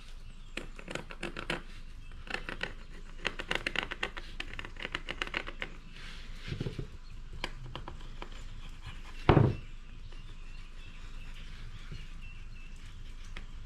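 Quick runs of short scratchy drawing strokes on a wooden board as a play-button shape is marked out, with one loud thud a little past halfway.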